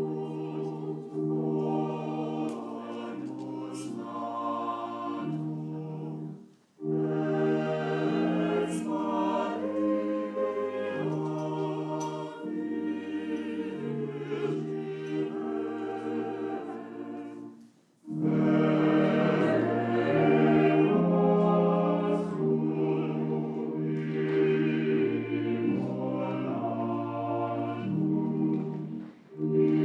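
Church choir singing a slow communion hymn, sustained phrases broken by two short pauses between lines.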